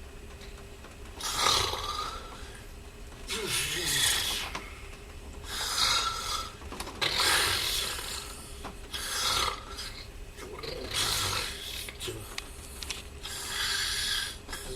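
A person snoring, seven noisy snores about every two seconds, over a steady low hum.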